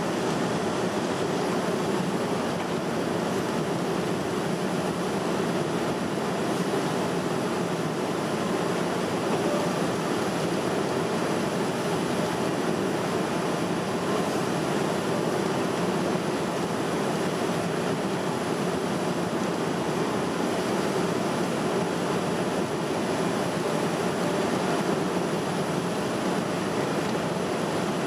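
Steady cabin noise inside a Boeing 787-10 descending on approach: an even rush of engine and airflow, heard from a window seat over the wing.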